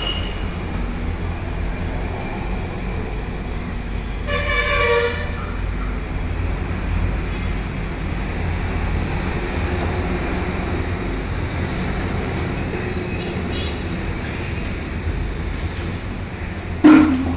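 Steady low rumble of road traffic, with a vehicle horn sounding for about a second a few seconds in and a short, loud sound near the end.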